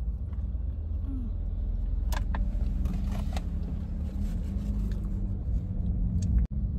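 Steady low rumble of a car on the move, heard from inside the cabin, with a few faint clicks about two to three seconds in. The sound drops out for an instant near the end.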